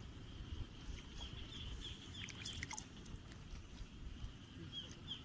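Short, falling chirps from a small animal, repeated a few times a second, sparse in the middle and thicker near the end, over a low rumble with a few faint clicks about halfway through.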